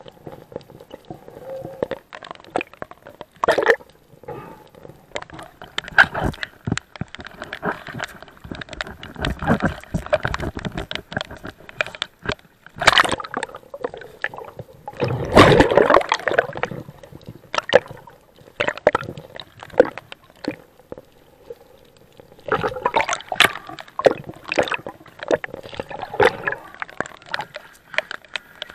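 Water gurgling and sloshing around an underwater camera as a spearfisher swims and dives over a reef, in uneven surges with many scattered sharp clicks.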